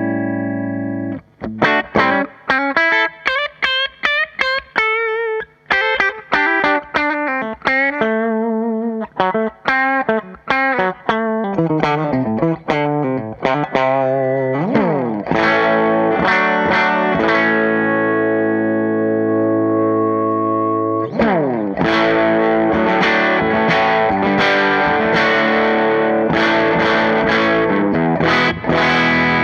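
Electric guitar with humbucker pickups played through the AmS Hurricane 40, a tube amp head with four 6V6 power tubes. For about the first half it plays a single-note lead line with vibrato and bends, then settles into sustained ringing chords with a couple of slides.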